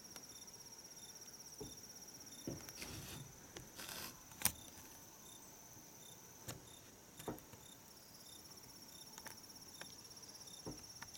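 Insects chirping in a steady, high, pulsing trill, with several short faint clicks and knocks scattered through; the loudest click comes about four and a half seconds in.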